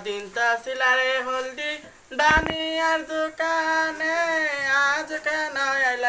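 Singing of a Bengali village wedding song (biyer geet), with long held and wavering notes. There is a brief thump about two seconds in.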